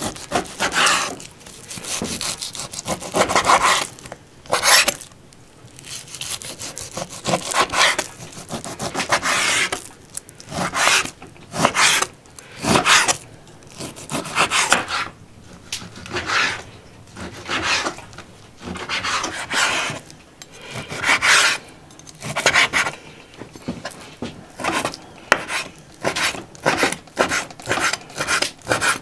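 Kitchen knife slicing raw steak meat on a wooden cutting board: repeated sawing strokes of the blade through the meat and against the board. The strokes get shorter and quicker near the end as smaller pieces are trimmed.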